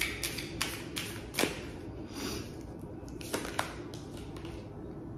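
Tarot cards being shuffled and drawn by hand: a run of quick clicks and taps as the cards strike each other, a brief swish about two seconds in, and two more taps a little later.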